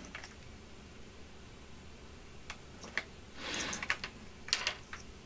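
Light clicks and rustling of plastic XT60 battery connectors and their wire leads being handled, with a few sharp clicks and a short rustle about three and a half seconds in.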